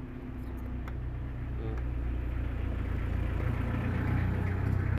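An engine runs steadily with a low hum that grows gradually louder toward the end, with a few light clicks.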